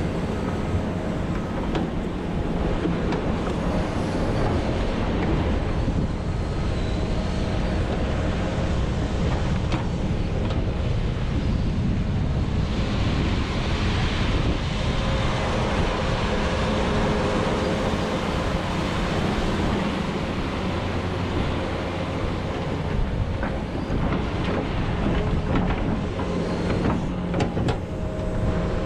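John Deere 210G excavator's diesel engine running steadily under load as the machine digs into frozen peat moss, with a stretch of hiss about halfway through and a few sharp knocks near the end.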